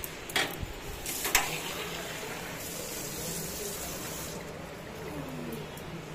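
Two sharp clinks of a brass vessel against metal in the first second and a half, then liquid pouring from the vessel over small brass idols into a metal plate for about two seconds.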